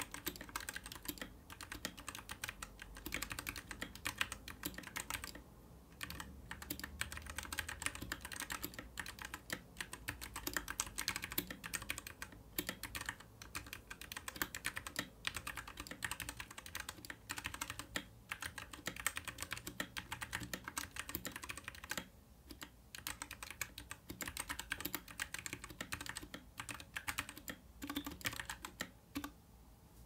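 Typing on a Royal Kludge RK96 mechanical keyboard fitted with Gateron Red linear switches: a dense, continuous run of key clacks, with brief pauses about five seconds in, around twenty-two seconds, and just before the end.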